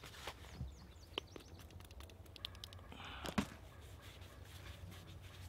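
Faint handling sounds of insect repellent being put on: a few short sharp clicks and spritzes from a small orange spray bottle, then a brief rustle of a fleece sleeve and hand rubbing over the face.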